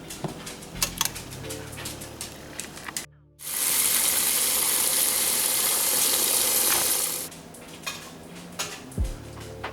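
Kitchen work under background music: scattered clicks and clatter, then after a sudden cut a loud, steady hiss for about four seconds, then clicks again.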